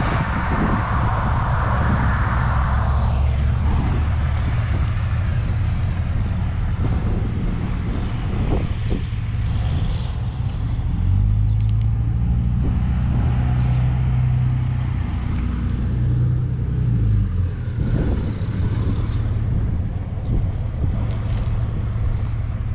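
Low rumble throughout, with a steady engine hum from about eleven to seventeen seconds in and a few faint clicks.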